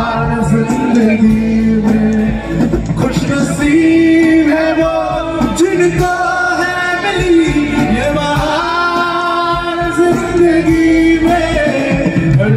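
Male vocalist singing a Hindi film ballad live with a band of bass guitar, keyboard and drums through a PA system, holding long notes.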